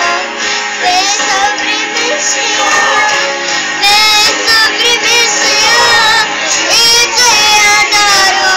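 A girl singing a melody over musical accompaniment, her voice wavering in pitch on held notes around the middle and again near the end.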